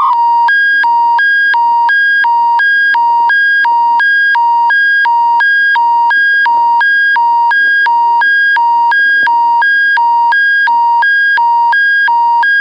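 Alberta Emergency Public Warning System alert tone: a loud electronic two-tone signal that switches back and forth between a lower and a higher pitch about three times a second. It is the attention signal that precedes a broadcast emergency bulletin.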